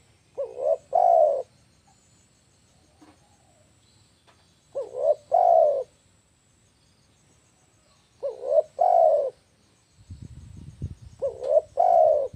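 A spotted dove cooing: four phrases about three and a half seconds apart, each two short coos followed by a longer, louder one. A low rumble comes in near the end.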